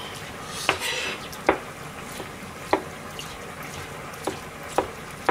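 Kitchen knife knocking against a plastic cutting board while cutting food, about five sharp, irregularly spaced knocks.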